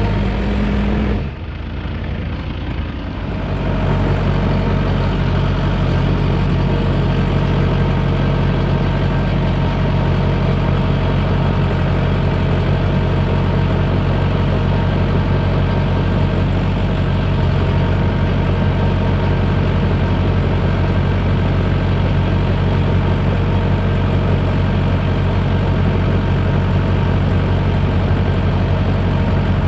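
Excavator's diesel engine running steadily. There is a brief dip in level about a second in.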